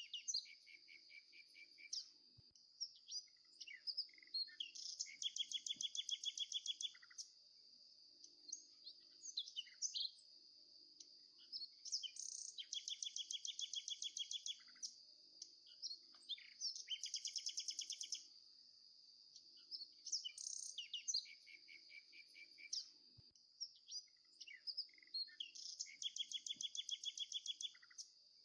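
Small birds chirping and singing, with bouts of fast trilled notes repeating every few seconds over a steady high-pitched buzz.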